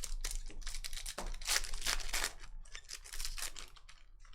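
Chrome trading cards being handled and flipped through by hand: a quick run of crisp rustles and clicks as the cards slide against each other.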